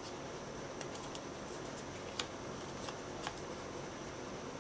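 Thin cardboard game cards being slid off a stack and handled on a wooden table: a few light ticks and paper slides over a steady background hiss, with the sharpest snap a little past two seconds in.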